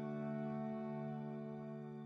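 Background music: a soft chord held steadily, starting to fade near the end.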